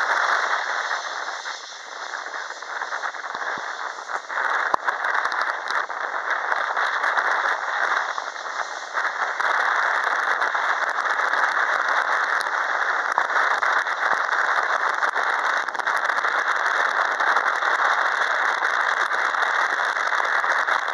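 Jet engines of an Airbus A320-232 (IAE V2500 turbofans) running on the runway ahead of take-off: a steady rushing roar with scattered crackles, which grows louder about nine seconds in and then holds.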